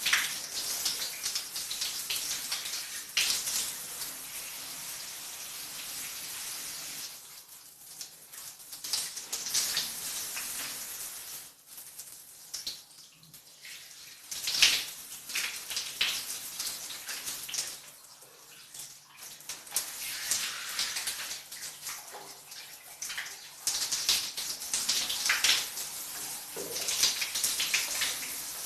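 Shower water falling and splashing in a small bathroom, the spray changing unevenly as it hits a body and the floor, with a louder splash about halfway through.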